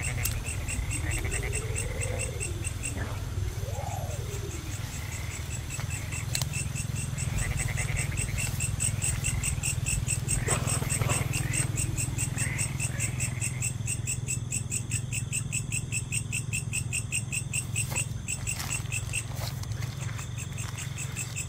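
Night chorus of frogs and insects: fast, evenly pulsing trills over a steady low drone, with a couple of rising-and-falling calls in the first few seconds.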